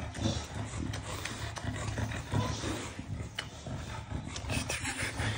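English bulldog making low, rumbling throat noises close to the microphone, pulsing unevenly as it is cuddled.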